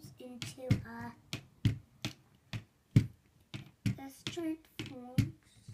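An uneven run of sharp clicks, about three a second, with a child's short vocal sounds between them.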